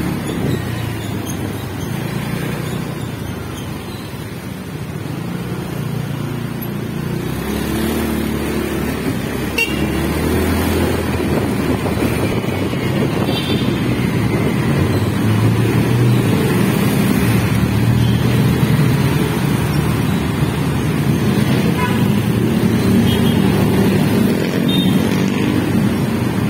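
Road traffic noise heard from a moving vehicle in city traffic: a steady low engine and road rumble that grows louder about eight seconds in, with a few brief higher-pitched sounds.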